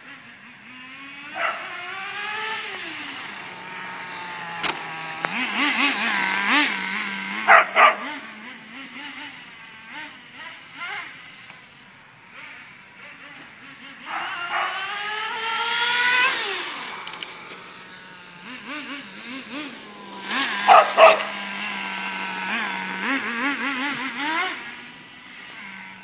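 Nitro RC car's small glow-fuel two-stroke engine (HPI RS4 3 Evo, stock T-15) revving up and down as the car makes passes, its pitch rising and falling again and again. A dog barks in two short clusters, once about a third of the way in and again near the end.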